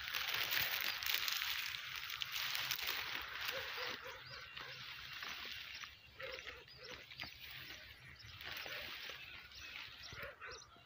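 Outdoor field ambience: a rustling, brushing noise for the first few seconds, then fainter, with many short bird chirps from about six seconds in.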